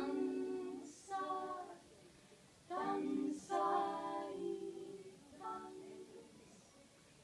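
A small group of young singers singing short phrases with held notes and brief pauses between them. The singing trails off near the end.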